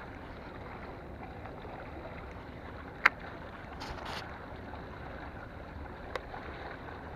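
Steady wash of water and wind at a rocky shoreline, with a sharp click about three seconds in, a brief hiss just after, and a fainter click near the end.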